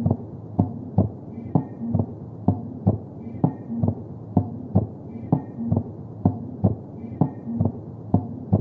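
Normal human heart sounds, lub-dub: the first and second heart sounds come in steady pairs about once a second. They play over a continuous low hum and are given as an example of normal physiological splitting of the second heart sound.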